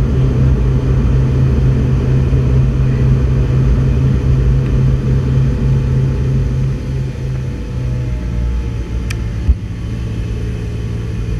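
Loud, steady low rumble of aircraft cabin noise from the plane's engines and airflow, easing a little about two-thirds of the way through. A single sharp click comes near the end, as a handheld lighter is lit.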